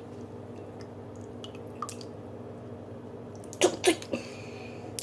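Lemon juice bottle being handled: small clicks, two sharp knocks in quick succession, then a brief hissing squirt of liquid near the end, over a steady low hum.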